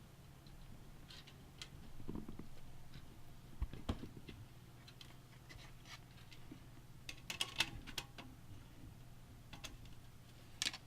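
Light clicks, taps and a couple of soft knocks from computer parts and small hardware being handled, with a cluster of clicks about seven seconds in and another sharp click near the end, over a faint steady low hum.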